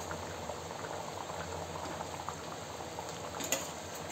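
Potato and taro-root curry bubbling at a rolling boil in a kadai, with small pops throughout and one short knock about three and a half seconds in.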